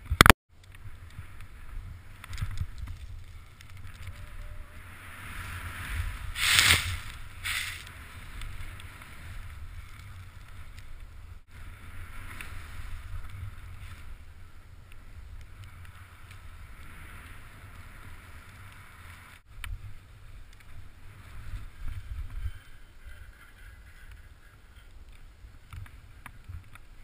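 Wind rumbling on a helmet-mounted camera and the rushing hiss of a snowboard carving through deep powder snow, with a louder rush of noise about six and a half seconds in.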